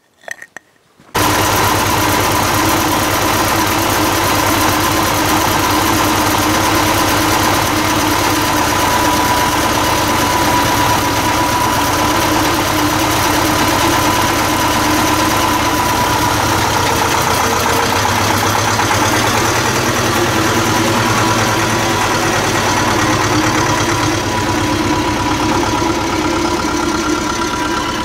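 Two-cylinder air-cooled diesel of a T-25 Vladimirets tractor running steadily as the tractor drives off. It comes in suddenly about a second in and gets a little quieter near the end as the tractor moves away.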